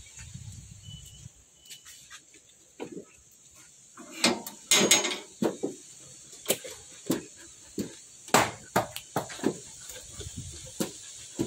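Metal kennel gate and bars clanking and knocking, a dense cluster about four to five seconds in, then scattered sharp knocks and clicks as a German Shepherd moves about on the board floor. A steady high insect-like hiss runs underneath.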